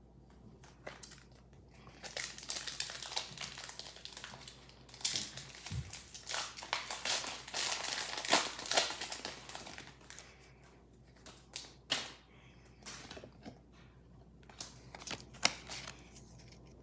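A Pokémon trading card booster pack's foil wrapper being torn open and crinkled for several seconds, starting about two seconds in. After that come lighter scattered clicks and rustles as the cards are slid out and handled.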